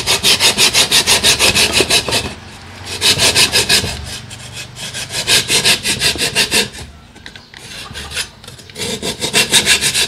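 Coarse-toothed hand saw cutting through a pumice stone block in quick back-and-forth strokes, in several runs broken by short pauses.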